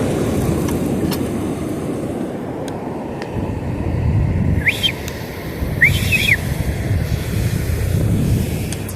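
Wind buffeting the microphone in a steady low rumble on an open beach. Two short, high, arching calls stand out about halfway through.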